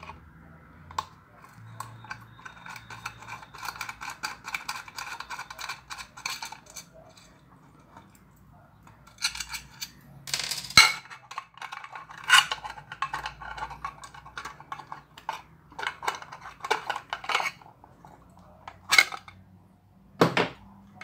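Metal scraping and clinking from pliers unscrewing the small nuts on an audio interface's jack sockets, then the nuts and washers clicking down on a table with scattered sharp clinks, the loudest about eleven seconds in. A duller knock comes near the end.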